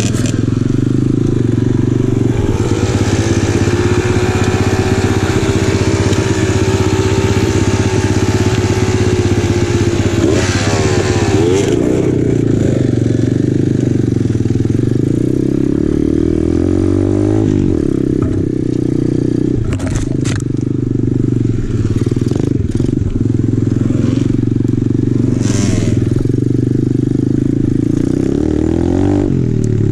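The single-cylinder four-stroke engine of a 2020 Apollo RFZ Open 125cc pit bike running while it is ridden along a rough trail, its revs rising and falling with the throttle. A few sharp knocks come in the second half.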